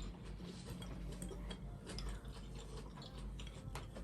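Cutlery clicking lightly against a dish while a salad is eaten: a run of faint, irregular clicks.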